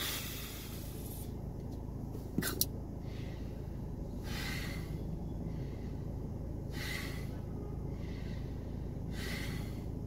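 A man taking deep, repeated breaths through a metered-dose inhaler held to his mouth, one breath about every two and a half seconds: the tidal-breathing technique for young children who cannot hold their breath. Two quick clicks come about two and a half seconds in.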